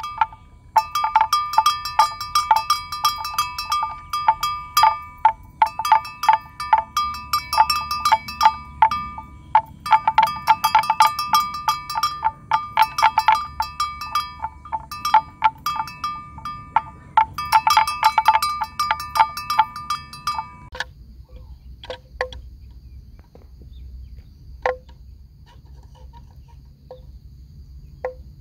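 A bell worn by a grazing water buffalo, clanging in rapid runs of strikes as the animal works its head through the grass. The runs last a few seconds each with short gaps, stop about two-thirds of the way through, and only a few faint clinks follow.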